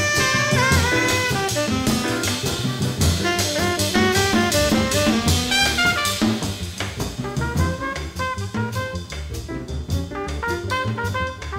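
1957 bebop jazz recording: a horn plays fast melodic runs over drum kit and bass.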